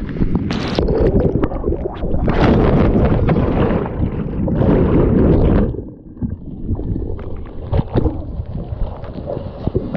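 Whitewater rapids rushing and splashing over a kayak and the camera mounted on it: loud churning water for about six seconds, then suddenly quieter, with scattered sharp splashes and drips.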